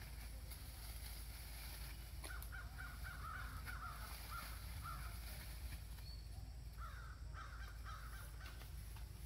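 Animal calls: a run of short, harsh calls starting about two seconds in and lasting about three seconds, then a second run around seven seconds in.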